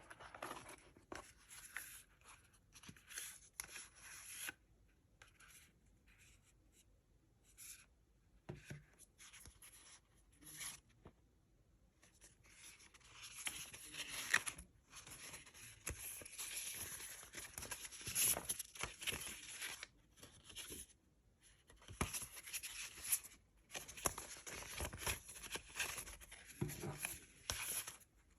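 Paper and cardboard packaging of an iPad box being handled and torn open: intermittent rustling, scraping and tearing with small clicks, in stretches broken by short pauses.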